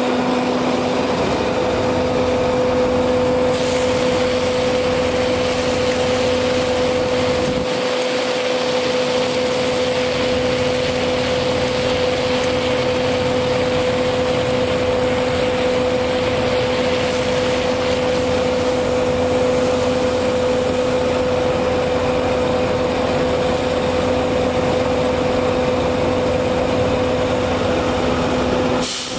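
A water truck's engine-driven water pump running with a steady, even hum, while water hisses out of the hose-reel nozzle under pressure.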